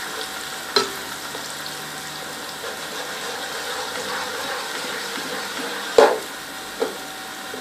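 Onions and garlic frying in oil in a pot, a steady sizzling hiss, with a few sharp knocks about a second in and again near six and seven seconds in.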